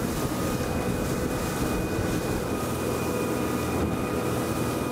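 Fishing boat under way at speed: a steady engine drone with a thin held whine over the rush of the hull through the water.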